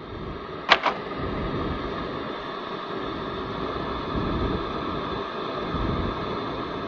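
Steady background room noise with a low rumble, broken by a sharp double click just under a second in.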